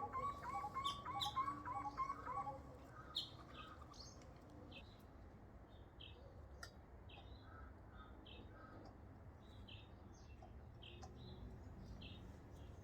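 Small birds chirping: a quick run of repeated chirps in the first couple of seconds, then short high calls scattered throughout.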